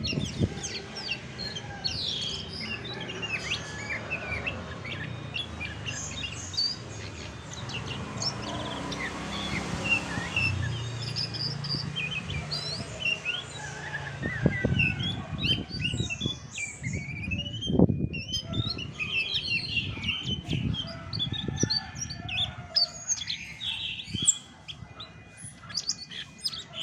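Chestnut-backed thrush (anis macan) singing a long, dense run of quick, varied chirps and whistles, with a few low thumps about halfway through.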